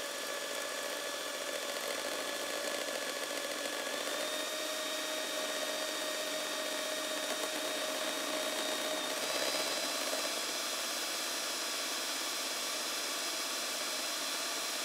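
Electric hand mixer running steadily, its beaters whipping cream in a metal bowl. The motor's whine steps up slightly in pitch about four seconds in and again about nine seconds in.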